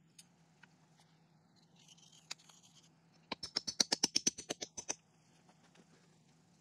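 Hammer tapping on a steel post-anchor plate set on a concrete pier: a quick run of about fifteen light metal-on-metal taps in about a second and a half, each with a high ring, after a couple of single knocks.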